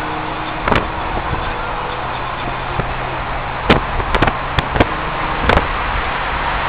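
Car driving with a steady engine and road noise, broken by about six short, sharp pops, most of them bunched together in the middle.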